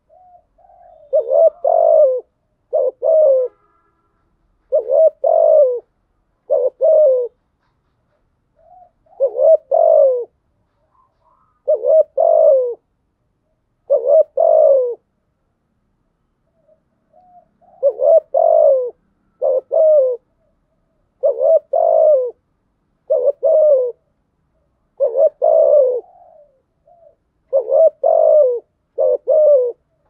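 Spotted dove cooing: repeated short phrases of low, throaty coos every one to two seconds, with a longer pause a little past the middle.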